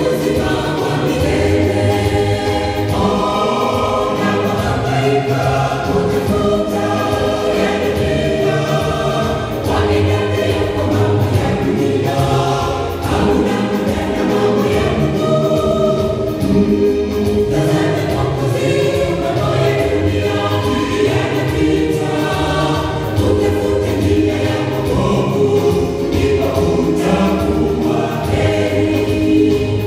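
Mixed choir of men's and women's voices singing a gospel song in harmony, amplified through microphones and stage speakers. It sings continuously at a steady, loud level.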